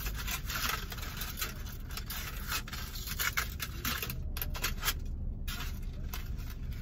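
A dense run of small scrapes, crackles and rustles as a container of crunchy cornstarch chunks is opened by hand, letting up briefly twice past the middle.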